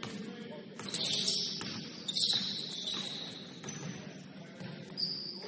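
Basketball shoes squeaking on a gym floor in a run of short high squeaks, with a couple of sharp knocks in the first half.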